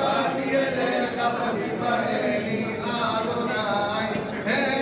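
A group of mainly male voices singing a chant-like Hanukkah candle-lighting song together, steady and without pause.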